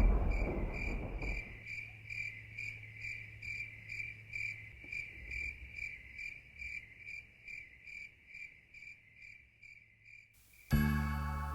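Cricket chirping in an even rhythm, about three to four chirps a second, fading out toward the end. The tail of a thunder rumble dies away over the first second and a half, and guitar music comes in near the end.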